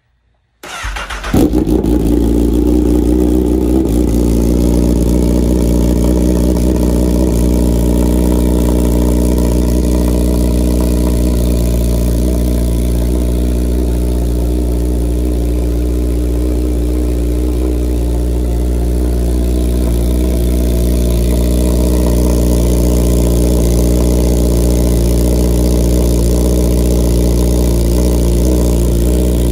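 2017 Honda CBR1000RR's inline-four engine, fitted with an Akrapovic full-system exhaust, starting with a brief crank about a second in, then idling steadily.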